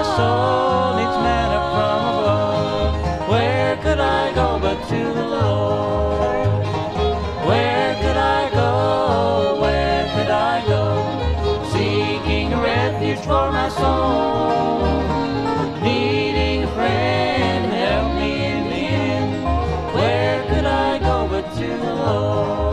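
Bluegrass band playing an instrumental break: banjo and acoustic guitar over a steady pulsing upright bass, with a sliding string lead line on top.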